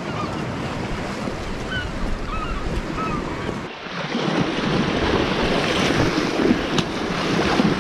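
Sea waves washing against rocks at the water's edge, with wind buffeting the microphone; the surf gets louder about halfway through.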